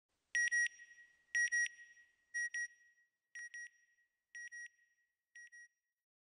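Electronic beeps in pairs, a high steady tone repeating about once a second and growing fainter, six pairs in all: an end-title sound logo.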